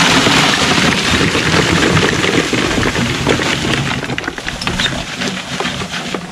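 Water-quenched wood charcoal pouring out of a tipped plastic wheelbarrow into a plastic tub: a dense rushing slide at first, thinning after about four seconds into scattered clatters of single pieces.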